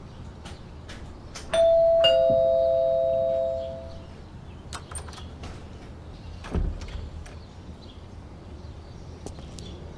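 Doorbell chime sounding a two-note ding-dong, a higher note followed half a second later by a lower one, both ringing on and fading over about two seconds. Several seconds later come a few light clicks and a dull thump.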